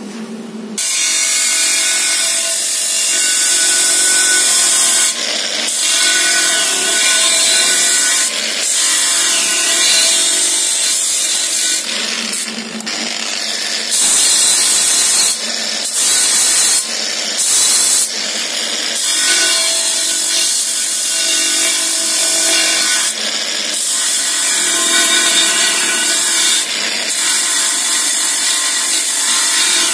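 Angle grinder with a coarse flap disc grinding down a TIG weld bead on a cast aluminium wheel rim. It starts about a second in, and the grinding noise rises and falls with several short breaks as the disc is worked along the weld.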